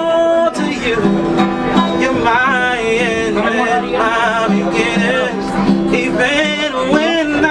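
A singer holding long, wavering notes over strummed acoustic guitar chords.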